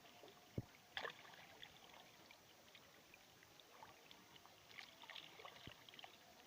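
Faint water sounds: scattered small splashes and ticks, with a dull knock about half a second in and another near the end.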